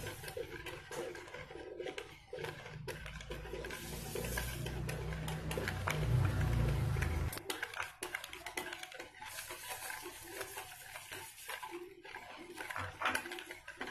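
Wire whisk beating eggs and sugar in a plastic bowl, its wires clicking rapidly against the bowl. A low rumble runs underneath from about two seconds in and cuts off sharply at about seven seconds.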